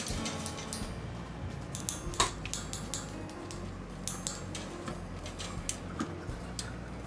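Light metallic clicks and taps of a wire pet cage, as a cat-toy wand's rod knocks and rubs against its bars, scattered irregularly with one sharper click about two seconds in.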